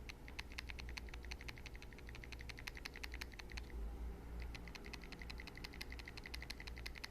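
Acura MDX air-conditioning blend-air door actuator clicking rapidly as it runs, a fast train of sharp ticks that pauses briefly a little past halfway and then resumes. The clicking comes from a large gap (play) at one point in the actuator, the cause of its abnormal noise.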